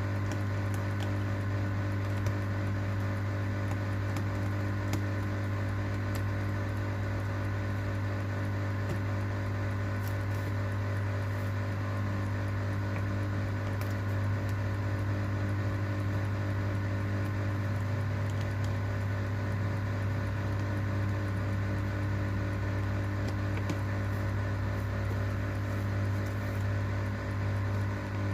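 Steady low electrical hum of a running machine, with a few faint scattered clicks.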